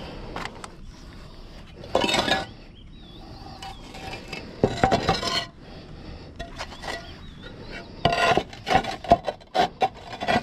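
Concrete roof tiles scraping and knocking against one another as they are lifted and slid into place, in separate rough bursts, with a quick run of scrapes and knocks near the end.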